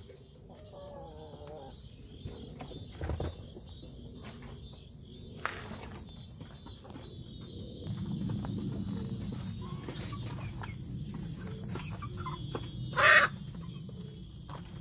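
Chickens in a pen clucking softly and scratching, with one short louder squawk near the end.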